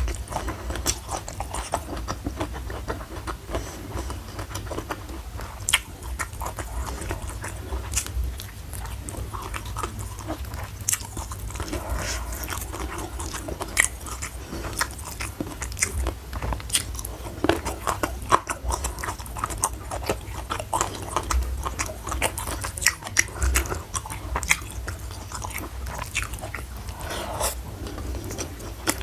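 Close-miked chewing and biting of food, with many sharp, crisp crunches scattered irregularly over a low steady hum.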